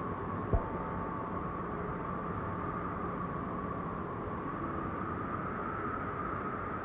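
Steady mountain wind blowing, an even rush with a faint high tone that drifts slightly up in pitch. A single short thump about half a second in.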